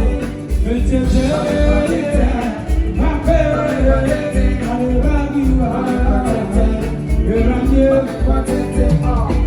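Live band playing a song at a sound check: a steady pulsing bass-and-drum beat with a melody over it.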